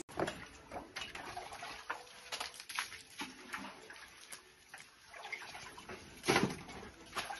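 Hand digging at the bottom of a well shaft: scattered knocks, scrapes and splashes of tools, stone and water in metal pans, sounding enclosed, with one louder noise about six seconds in.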